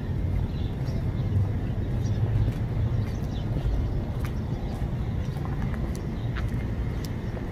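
Outdoor street ambience on a walk: a steady low rumble, with faint bird chirps and a few light clicks scattered through it.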